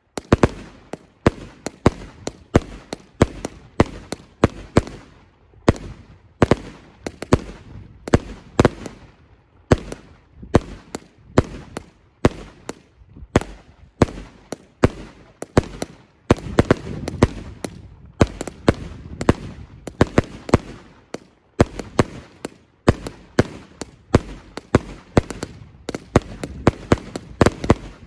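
Multi-shot consumer firework cake firing shot after shot: a steady, rapid string of sharp bangs, about two to three a second, as each comet climbs and breaks into small bursts of sparks, thickening into a denser run of bangs past the middle.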